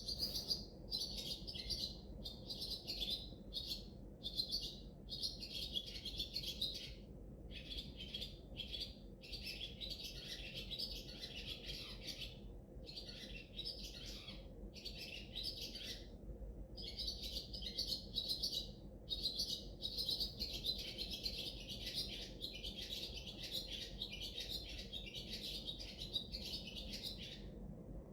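Small birds chirping and twittering almost without pause, high-pitched, broken by short gaps every second or two.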